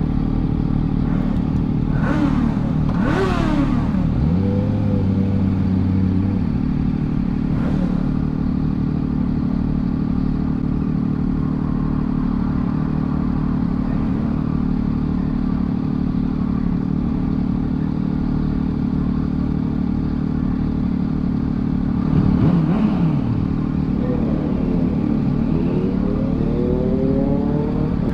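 Motorcycle engines idling at a standstill, the nearest being the Triumph Daytona 675's inline three-cylinder, with a few short revs that rise and fall, one near the start and several near the end.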